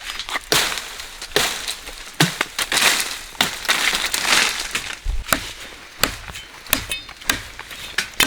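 Rustling of leafy vegetation being handled, then a run of sharp snaps and clicks of stems and twigs being cut, about two a second in the second half.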